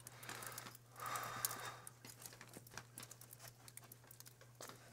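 A person breathing out a lungful of cigarette smoke in two soft breathy rushes in the first two seconds, then faint scattered ticks and rustles.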